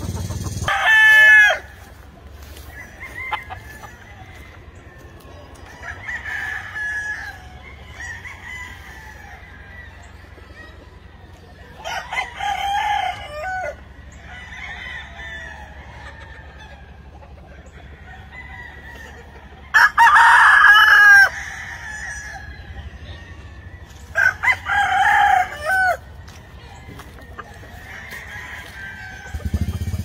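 Gamefowl roosters crowing: four loud crows, each a second or so long, about a second, twelve, twenty and twenty-five seconds in, with fainter crows between them.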